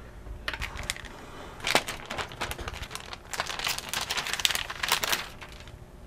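Light irregular plastic clicks and scratchy rustling as a laptop memory module is pulled from its slot and handled against the laptop's plastic case. The clicks come thickest through the second half.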